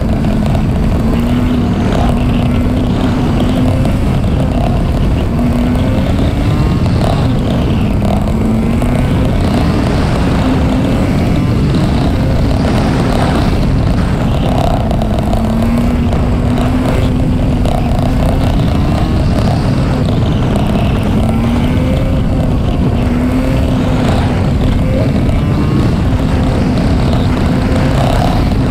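Honda Varadero 125's small V-twin engine running under way, its pitch climbing and dropping back several times as the rider accelerates and eases off, over a steady rush of wind noise on the microphone.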